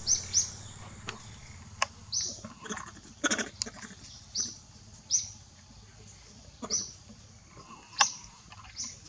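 Infant macaque giving short, high-pitched squeaks, repeated every second or two, over rustling in dry leaves, with a sharp snap about eight seconds in.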